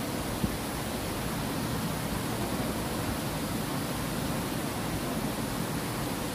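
Steady rush of water spilling over a low concrete weir into a channel. A single short click about half a second in.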